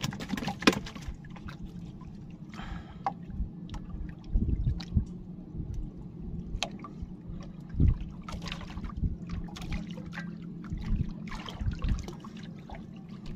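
Sea water lapping and trickling against the hull of a small fishing boat, over a steady low hum. Scattered small knocks and clicks run throughout, with a few heavier low thumps around the middle.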